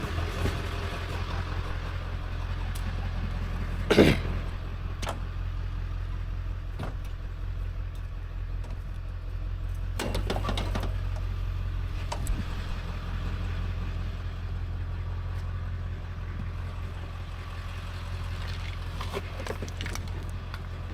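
A vehicle engine idling steadily, with a few knocks and clanks of scrap metal being handled, the loudest about four seconds in and others around ten and twelve seconds.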